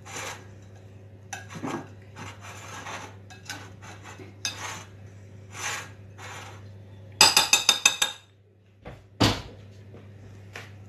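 A utensil scraping and spreading crème fraîche around a glass baking dish in short, irregular strokes. A little past the middle comes a quick run of sharp clinks of the utensil against the glass, the loudest part, followed by a single knock.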